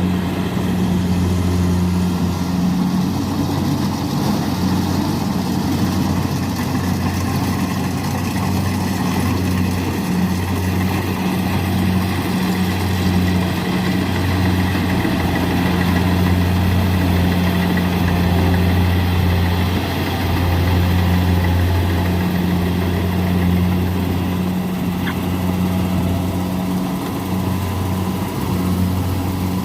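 Kubota rice combine harvester's diesel engine running steadily with a deep, even hum.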